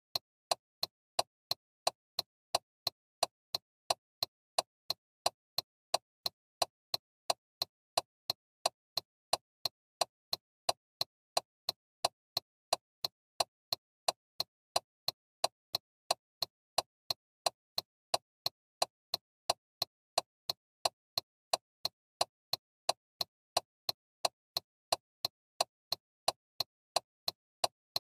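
A car's turn-signal indicator ticking in a steady, even rhythm of sharp clicks, about two to three a second.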